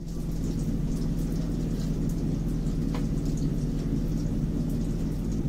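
Food sizzling and crackling as it fries in hot oil in a pan, over a steady low hum.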